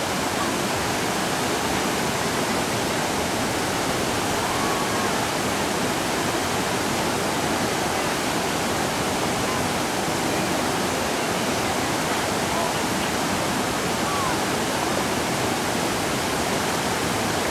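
Waterfall and rapids rushing in a steady, unbroken roar of white water.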